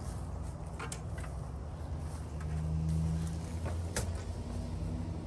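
A steady low mechanical rumble that swells briefly about halfway through, with a few sharp clicks, the loudest about four seconds in.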